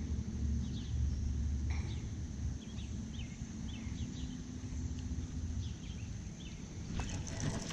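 Outdoor ambience: low wind rumble on the microphone, a faint steady hum that stops near the end, and a string of short, high chirps from small birds.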